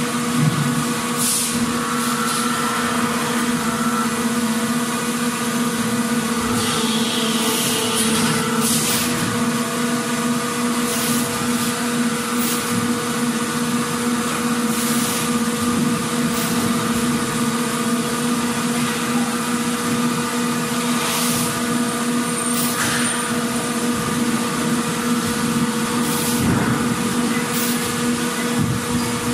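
Motorcycle assembly-line noise: a steady machinery hum, broken every couple of seconds by short hisses of compressed air from pneumatic tools.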